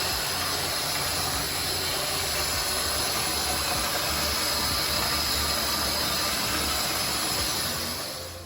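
Cold water running steadily from a bathtub faucet into a bucket, a loud even gush that tapers off near the end as the tap is turned down.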